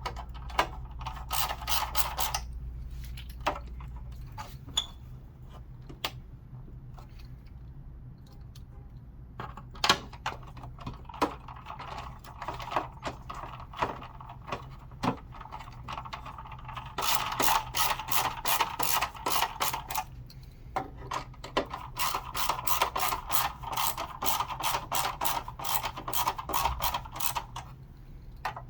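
Runs of rapid, even mechanical clicking from a hand tool, lasting a few seconds each, with scattered single knocks from handling parts between them.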